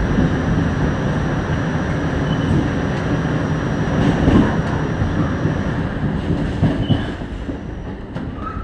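Pullman-Standard R46 subway car running along open track, heard from inside at the front window: a steady rumble of wheels and motors, with a few sharp wheel clacks about four and seven seconds in. It grows quieter over the last second or so.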